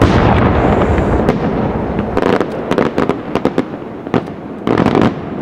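Aerial firework shells bursting overhead: a loud, dense barrage at first, then a rapid string of sharp cracks about two seconds in, and another loud cluster of bangs near the end.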